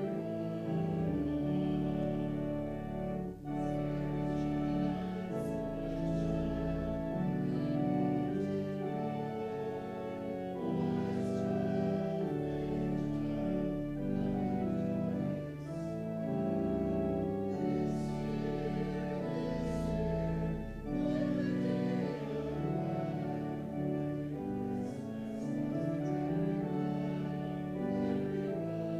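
Slow instrumental hymn music, held chords changing every second or two.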